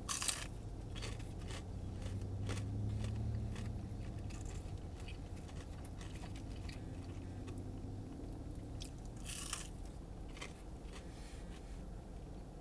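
A person biting into and chewing a piece of battered fried chicken, the fried coating crunching now and then in short crackles.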